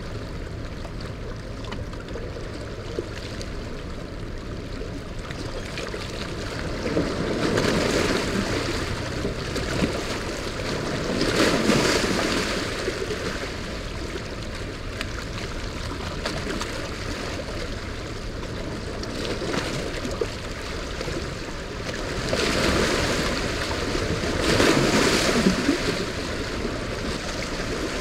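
Rushing, turbulent tailrace water below a dam releasing floodwater, with waves washing against the rocky bank and swelling louder four times.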